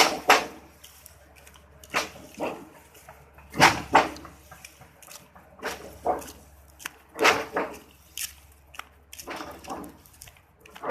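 Heavy knocks from a portable concrete pump, mostly in pairs, repeating every one and a half to two seconds over a steady low hum.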